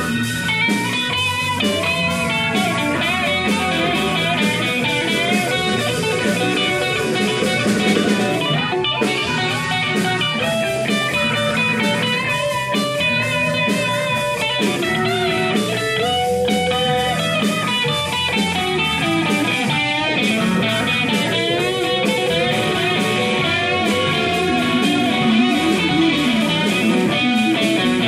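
Live blues band playing an instrumental passage: an electric guitar lead with bent, wavering notes over bass, drums and keyboard.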